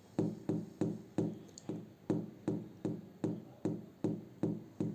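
A steady run of dull, low thumps, about two and a half a second, each dying away quickly.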